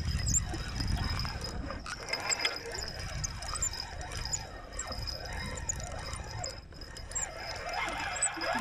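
Wind buffeting the microphone as a fluctuating low rumble, with a thin, steady high-pitched whine running through it.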